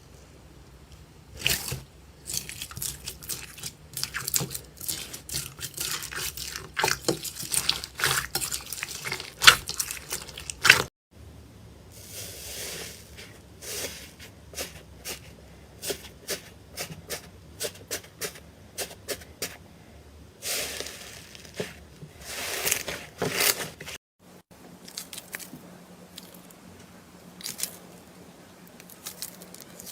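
Slime being squeezed and poked, giving dense runs of wet clicks, pops and squelches that cut off abruptly twice.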